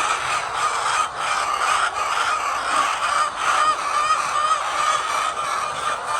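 A large flock of laying hens clucking and squawking, many calls overlapping in a steady chorus.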